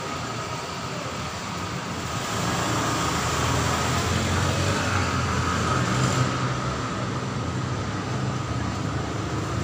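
Steady low rumble and hiss of background noise, growing a little louder about two seconds in, with no distinct events.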